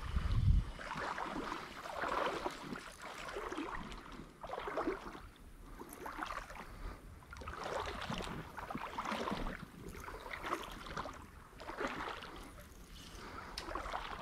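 Shallow creek water splashing and sloshing in irregular bursts about once a second, with quieter gaps between.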